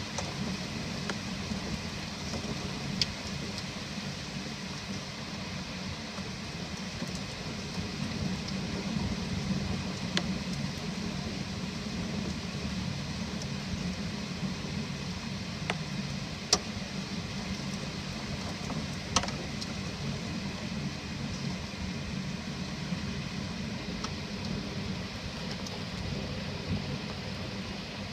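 Steady rain falling, with four sharp clicks scattered through it, the loudest about two-thirds of the way in.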